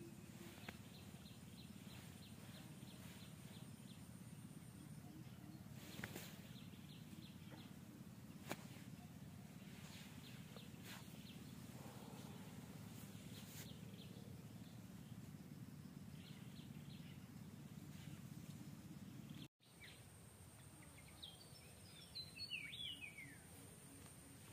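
Faint outdoor ambience: a steady low background hum with a couple of faint clicks, and a short flurry of quick, falling bird chirps near the end.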